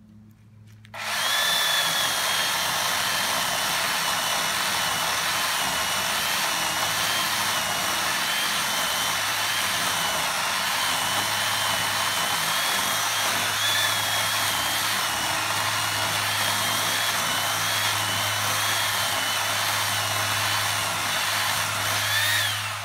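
Small Poulan electric chainsaw cutting into a dead oak trunk. It starts about a second in and runs steadily with a slightly wavering whine, rises in pitch briefly near the end, then stops.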